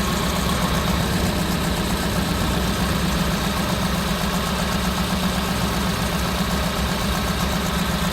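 Piaggio Porter (Daihatsu Hijet) 1.3-litre 16-valve four-cylinder engine idling, running rough with a rapid uneven pulsing: the sign of a misfire on cylinder number 4.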